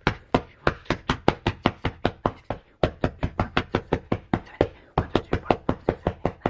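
An open hand slapping a paper drawing lying on a bed, over and over in a fast, even run of about three slaps a second, with two brief breaks.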